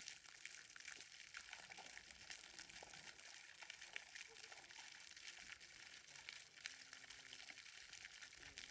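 Near silence: a faint steady hiss with scattered tiny ticks.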